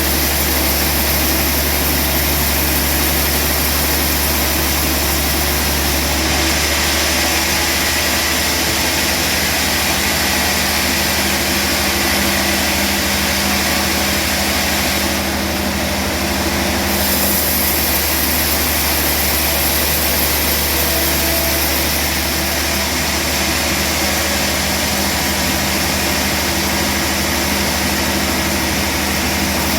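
Sawmill band saw machinery running with a loud, steady engine drone, its high hiss shifting slightly a few times.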